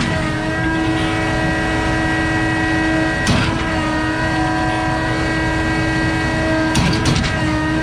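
Concord truck-mounted concrete pump running under load: a steady drone with a strong hum-like tone, broken twice by a sharp clunk a few seconds apart as the pump shifts strokes. The S-tube shift valve is held with a bungee strap for back pressure because its spring is thought to be worn.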